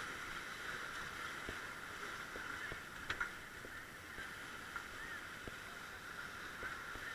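Steady rush of river water around a rafting boat, with a few faint knocks.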